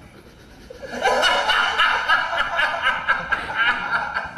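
A man laughing in a quick run of repeated chuckles, starting about a second in.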